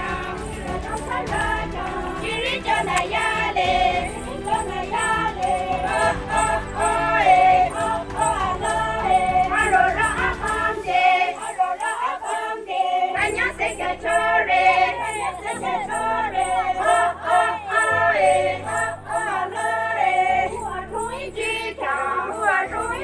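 A group of voices singing a folk song together in chorus. About halfway through, the low background rumble drops out and steady low held notes carry beneath the singing.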